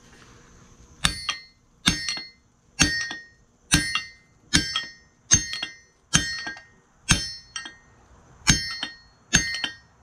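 A hammer striking a punch to drift out the hole in a ring pommel: about ten ringing metallic blows at a steady pace a little faster than one a second, starting about a second in.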